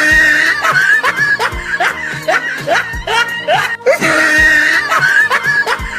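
Upbeat background music with a deep thump about every three-quarters of a second, short rising swoops and a held high note, with laughter-like sounds mixed in.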